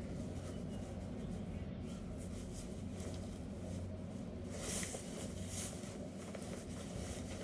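Clothes dryer running with the heat off, a steady low hum, with a short rustling, scraping noise about five seconds in.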